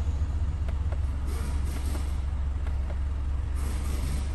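Isuzu NPR diesel engine idling steadily, heard from inside the cab as a constant low rumble. A couple of faint clicks come about a second in, from the instrument-cluster menu button being pressed.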